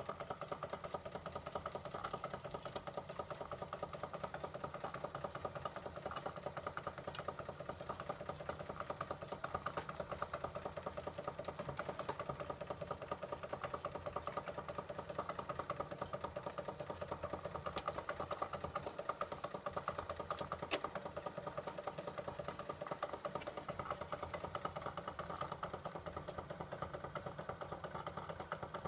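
Wilesco D15 toy steam engine running steadily with a fast, even beat as it drives a tin toy ferris wheel through its drive. A few sharp clicks stand out above the running.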